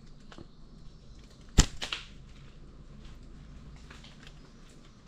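A slingshot shot: the drawn rubber bands are released with one sharp snap about a second and a half in, launching a stone, followed by a few quick smaller clicks.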